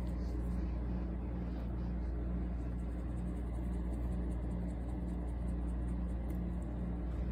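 A steady low rumble, with a faint hum above it that pulses evenly.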